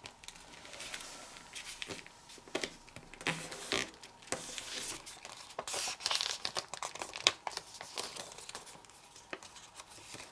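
A folded sheet of printer paper rustling and crinkling as hands crease it and turn it over, with scattered sharp crackles of the paper.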